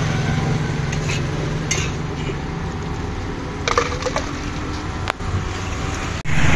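Orange juice being poured from a glass jug into a plastic mug, with a few clinks and knocks of glassware and jugs. A steady low engine hum runs underneath.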